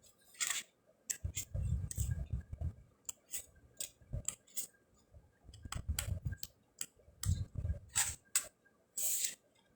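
Paper and card stock being handled and leafed through: irregular crisp clicks and rustles, with a few soft low bumps against the table.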